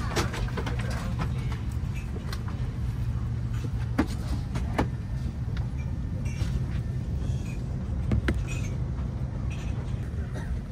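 Steady low hum inside a parked Airbus A330-300 airliner cabin, broken by a few sharp clicks and knocks, the first as the folding tray table is laid flat.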